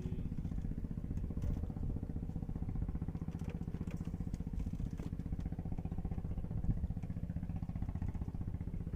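A small engine running steadily with a rapid, even beat. A single knock sounds about two-thirds of the way through.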